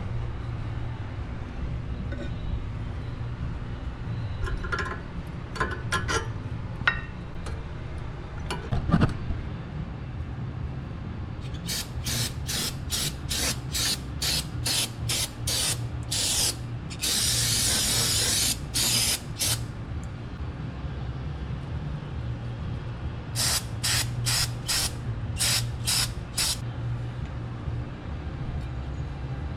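Aerosol brake cleaner sprayed in many short hissing bursts, then one longer spray of about a second and a half, then another run of short bursts. A few light clicks and knocks come before the spraying, over a steady low hum.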